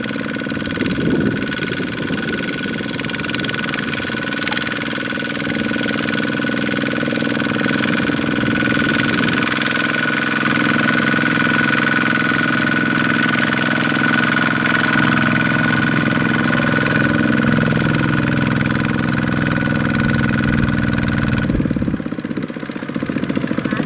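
Kubota single-cylinder diesel engine of a small farm tractor running steadily under work. The sound changes abruptly near the end.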